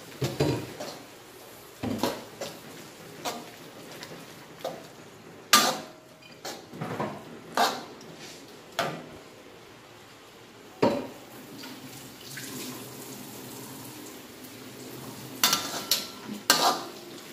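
Metal spatula knocking and scraping against a wok while stirring noodles: separate sharp clanks every second or two, with a quicker run of knocks near the end.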